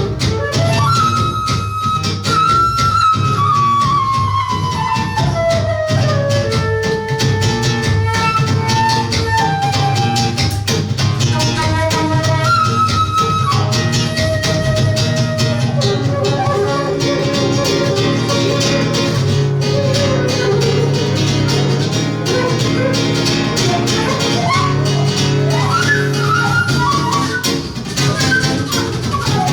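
Flute and seven-string acoustic guitar playing live together in a Brazilian choro style: the flute carries the melody in held notes that step downward early on, over the guitar's plucked bass and chords.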